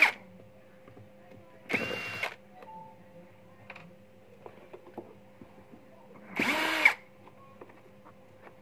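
Cordless drill-driver running on the screws of a backpack sprayer's plastic casing in two short bursts of about half a second each, about two seconds in and again past six seconds, its whine rising as it spins up and falling as it stops. Light clicks and handling of the plastic fill the gaps.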